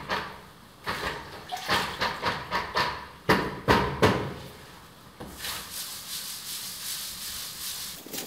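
A string of sharp knocks and clatters over the first five seconds, then from about five seconds in a steady scratchy hiss of a long-handled scrubbing brush rubbing over a plaster wall.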